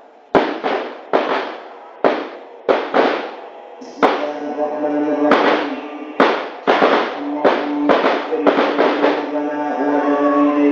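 More than a dozen loud, sharp bangs at uneven intervals, each ringing out, over a steady held tone with overtones that grows stronger in the second half.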